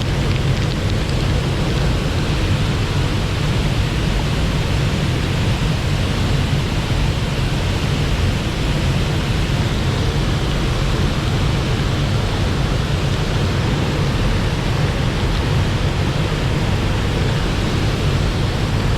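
Swollen mountain stream rushing, a loud, steady roar of water heaviest in the low end.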